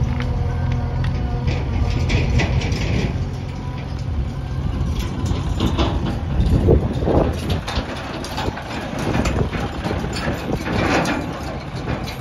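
A JCB backhoe loader's diesel engine running, steady at first, then rougher and louder with occasional knocks as the machine works.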